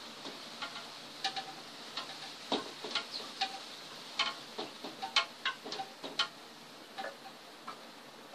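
Irregular light ticks and crackles, a few a second, from a hot wood-burning tip touched to and drawn across a wooden board as it scorches in fine lines.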